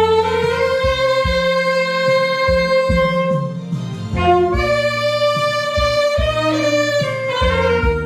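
Saxophone playing a slow melody in long held notes, sliding into a new phrase about four seconds in, over a backing track with bass and drums.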